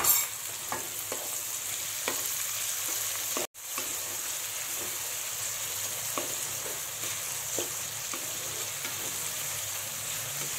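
Chopped onions frying in hot oil in a metal kadhai, a steady sizzle, stirred with a wooden spatula that scrapes the pan now and then. The sound cuts out for an instant about three and a half seconds in.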